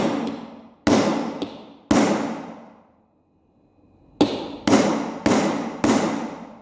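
Heavy hammer striking a steel hole punch, metal on metal, driving it through thick upholstery fabric onto a brass bar with a book beneath. Seven blows, each ringing briefly: three about a second apart, a pause of about two seconds, then four quicker ones. The thick fabric takes several blows before the punch cuts through.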